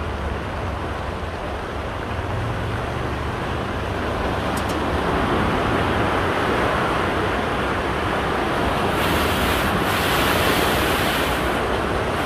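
Brown floodwater rushing and churning down a concrete drain filled to its brim, a steady rush of water that grows a little louder part way through.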